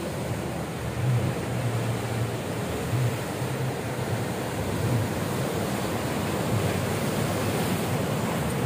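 Ocean surf breaking steadily on the shore, a continuous wash of noise, with low rumbles from wind on the microphone now and then.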